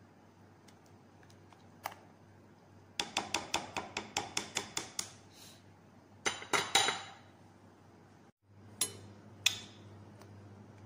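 A plastic spoon knocks and scrapes against a bowl while stirring a thick, creamy dessert mixture. First comes a quick run of about six strokes a second, then a few louder strokes, and near the end two single knocks.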